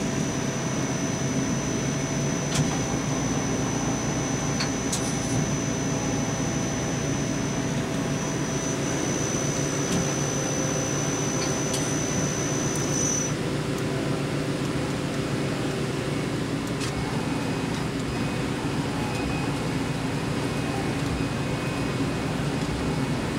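Mori Seiki SL-3H CNC lathe running under power: a steady machine hum, with a few clicks and clunks as the tool turret indexes. A thin high whine runs over it and stops about halfway through.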